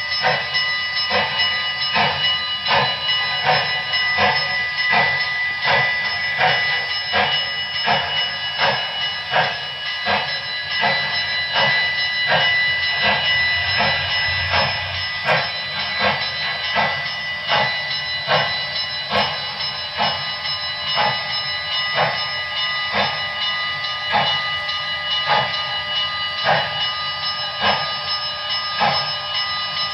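Sound decoder of a Broadway Limited Paragon 4 HO-scale GS-4 steam locomotive model playing steam exhaust chuffs in a steady, even rhythm as the model runs, with steady high tones under the chuffs.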